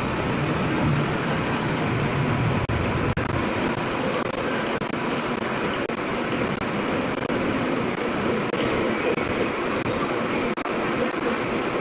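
Metal lathe running steadily while a thread is cut on a shaft: a continuous machine whir with faint, irregular ticks.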